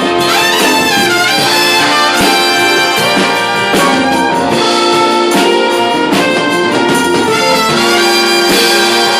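Big band playing jazz, the brass section of trumpets and trombones with saxophones sounding sustained chords.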